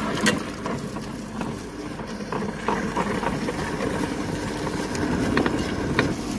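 Tabletop wet grinder running: its stone rollers turning in the spinning drum, grinding soaked fenugreek and urad dal into batter, with a steady hum and a few light knocks.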